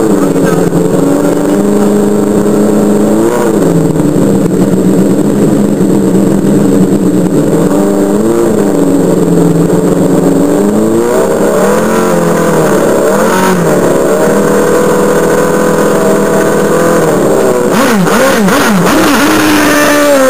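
Open-wheel single-seater race car's engine idling steadily at the start line, with a few short throttle blips. Near the end it revs unevenly up and down as the car pulls away.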